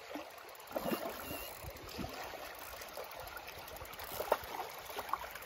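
Creek water running and trickling steadily, with a few faint knocks and handling sounds.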